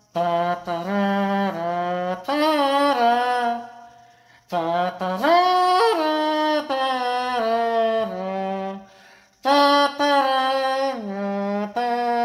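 A man humming a wordless melody in long held notes that step up and down in pitch. He pauses twice for breath, about four and a half and nine and a half seconds in.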